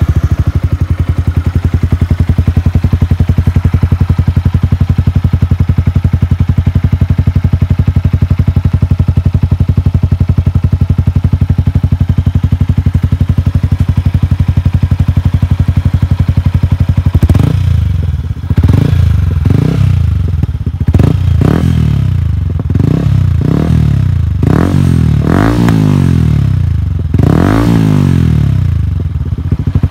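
Yamaha YZF-R15 V3's single-cylinder engine, breathing through an aftermarket Akrapovic slip-on exhaust, idling steadily just after starting, then revved in a series of about a dozen quick throttle blips from about halfway through.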